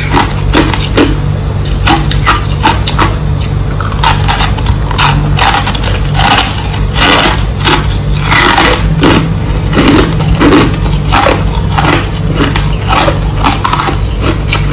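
Crushed ice being chewed close to the microphone: a run of crisp crunches, roughly two a second, over a steady low hum.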